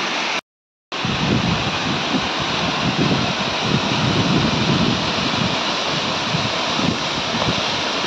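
Waterfall cascading down a steep rock face: a steady rushing of falling water, which drops out completely for about half a second near the start.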